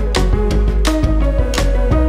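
Background music with a steady beat, held notes and a strong bass line.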